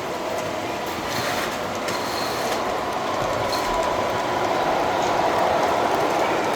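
Model train running on the miniature layout's track, a steady mechanical running noise that grows slowly louder.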